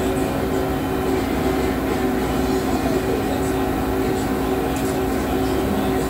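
Steady machinery hum of a machine shop: a low drone with a couple of held mid-low tones, one of them dropping in and out.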